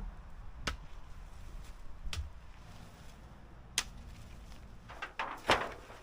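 A few separate sharp knocks, the loudest a quick cluster near the end, over a low steady hum.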